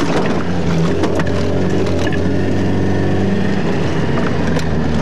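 Alfa Romeo Alfasud's flat-four engine running hard, heard from inside the cabin as the car is driven fast over a rough dirt track, with scattered knocks and rattles from the body.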